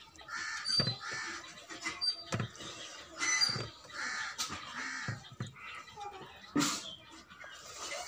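Crows cawing repeatedly, a string of short harsh calls, mixed with sharp clicks and smacks of rice being mixed by hand on a steel plate and chewed.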